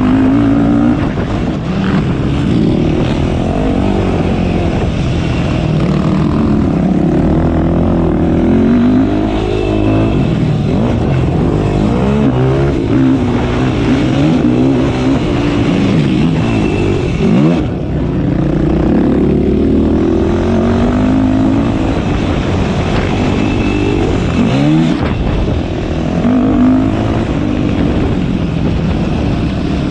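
Yamaha YFZ450R quad's single-cylinder four-stroke engine being ridden hard, its note climbing and falling over and over as the rider accelerates and backs off.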